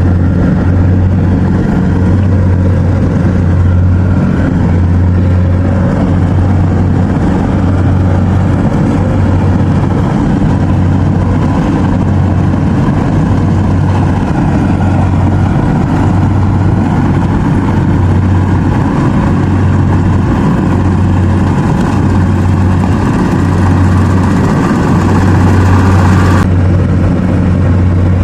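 Rice combine harvester's engine running steadily at working speed, a loud, even, low drone.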